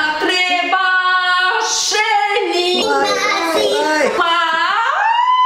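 A woman singing in a very high voice, moving between notes, then sliding up near the end into a long held high note.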